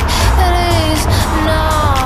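Background pop music with a steady beat, heavy bass and a gliding melody line.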